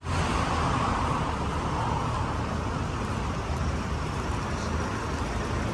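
Steady rumble of road traffic with no distinct events.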